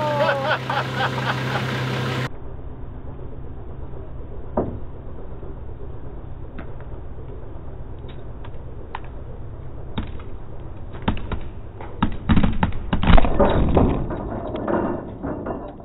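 Plastic zip ties snapping under the weight of a hanging car: a few single cracks, then a fast run of loud snaps about eleven to fifteen seconds in, loudest about thirteen seconds in, over a low rumble.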